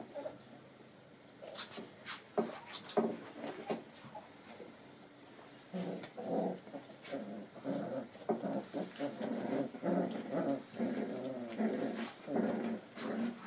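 Four-and-a-half-week-old schnauzer puppies play-fighting, with a few sharp clicks and knocks in the first seconds. From about halfway on there is a quick, busy run of small growls and yips.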